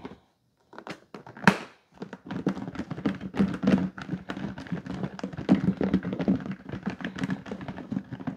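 Glazed chicken drumettes tumbling and thudding inside a lidded plastic container as it is shaken to coat them. A single sharp knock comes about a second and a half in, and from about two seconds on the shaking is continuous and irregular.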